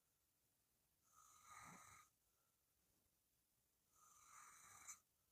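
Faint snoring of a sleeping person: two breaths about three seconds apart, each lasting about a second.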